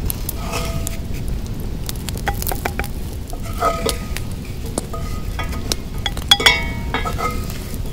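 Wooden spatula scraping and knocking against a Lodge cast-iron skillet and a bowl, with clusters of short ringing clinks, the loudest about six and a half seconds in. A low steady rumble runs underneath.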